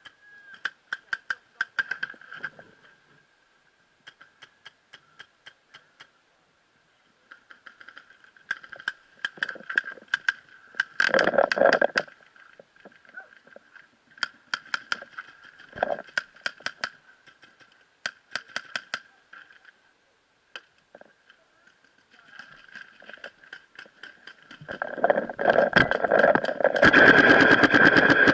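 Paintball markers firing in quick strings of shots, with short pauses between volleys and a steady high tone behind them. About three seconds before the end, a long, fast string of shots sets in, louder than the rest.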